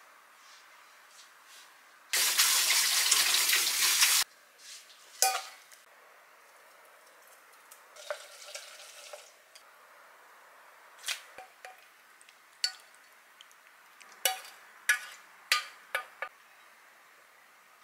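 Kitchen work: a loud, steady hiss lasting about two seconds and stopping abruptly, then a string of light clinks and taps of dishes and utensils, several with a short ringing tone.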